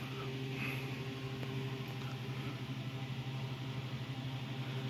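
A steady low machine hum with a faint hiss, unchanging throughout.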